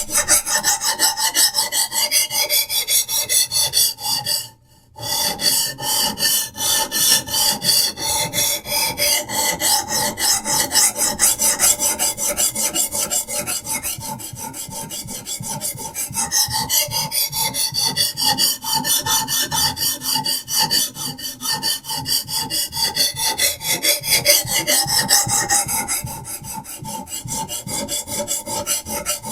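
A diamond sharpening stone on a guided knife sharpening system rasping back and forth along a knife blade's edge in rapid, even strokes. The strokes break off briefly about four and a half seconds in.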